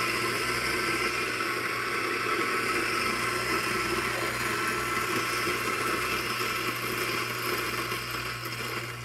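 Eureka Mignon Zero flat-burr espresso grinder running steadily as it grinds a single 18 g dose of coffee beans. The sound thins and drops away near the end as the grinder stops.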